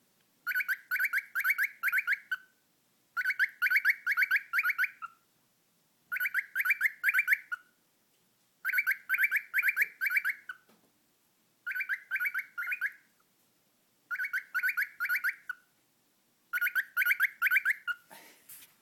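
Cockatiel repeating the same short burst of about five quick, loud, pitched notes over and over, roughly every two and a half seconds, with silence between bursts.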